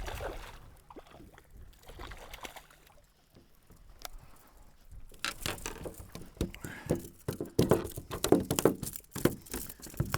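Water splashing and sloshing in short, irregular bursts, quieter at first and busier and louder from about halfway through.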